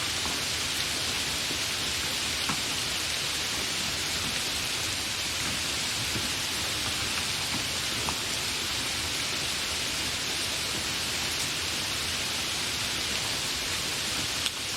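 Light rain falling steadily, an even hiss with a few single drops ticking now and then. A sharp click sounds just before the end.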